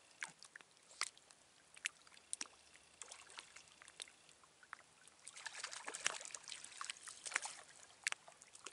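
Small waves lapping and splashing against the rocks at the water's edge, a faint irregular run of little splashes that gets busier for a couple of seconds just past the middle.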